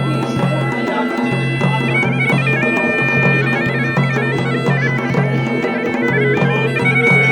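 Bagpipe playing a stepping melody over a steady drone, with drumming underneath.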